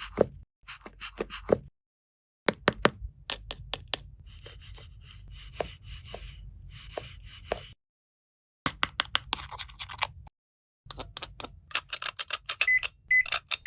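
Plastic toys and packaging being handled: sharp clicks, taps and scraping, in short stretches broken by dead-silent gaps. Near the end a toy gives a few short high beeps.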